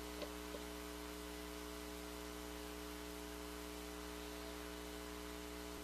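Steady electrical hum with faint hiss: the recording's background noise.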